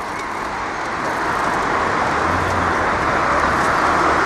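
Road traffic noise heard from a bicycle riding along a city road, growing steadily louder.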